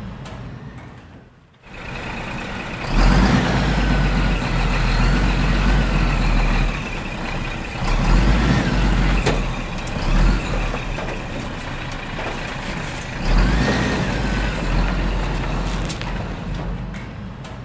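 Heavy diesel truck or construction machine running: a low engine rumble that swells up three times, with a steady high tone and a few squealing glides over it.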